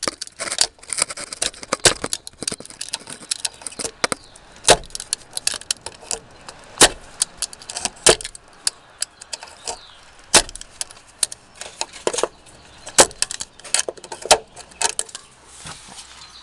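Utility knife sawing and working through a rubber exhaust hanger, with irregular sharp clicks and scraping as the blade and knife knock against the hanger and exhaust parts.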